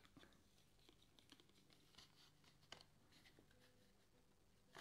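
Very faint scratches and ticks of a trading card being slid into a Card Saver semi-rigid plastic card holder, close to silence.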